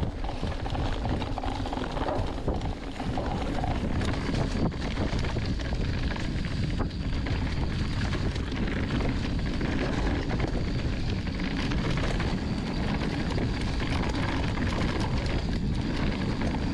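Mountain bike running fast down a dirt trail: wind rushing over the camera microphone, tyre noise on the dirt, and a constant patter of small knocks and rattles from the bike.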